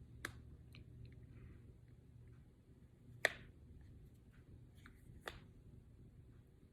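Three sharp clicks among faint ticking handling noises, the loudest click about three seconds in.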